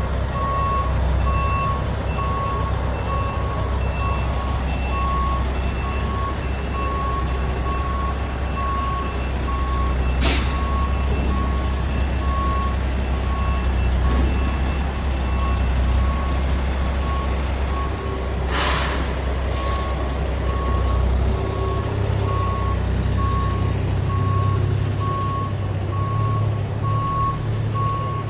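Tractor-trailer backing up: a backup alarm beeps steadily over the low rumble of the diesel engine, which grows louder near the end. Three short hisses of air break in, one about ten seconds in and two close together a little before twenty seconds.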